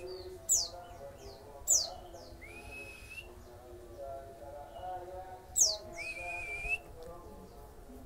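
Caged white-eye (pleci) singing: three short, sharp high notes that sweep downward, and two drawn-out whistles that rise and then hold, the second near the end the loudest.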